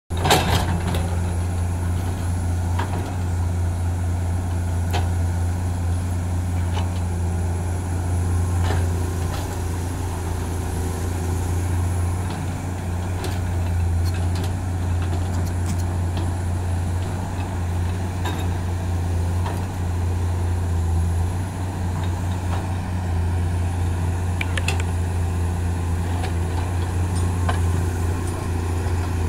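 Komatsu PC210-8M0 hydraulic excavator's six-cylinder diesel engine running steadily under working load while the bucket cuts a dirt slope. Sharp knocks come now and then as the bucket works the soil.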